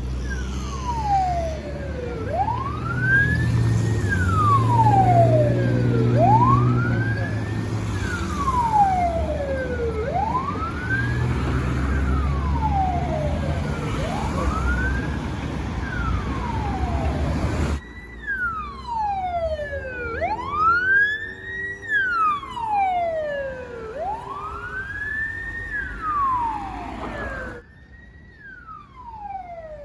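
Russian ambulance's electronic wail siren, sweeping slowly up and down in pitch, about one rise and fall every four seconds. Heavy traffic rumble lies under it at first and drops away suddenly about eighteen seconds in.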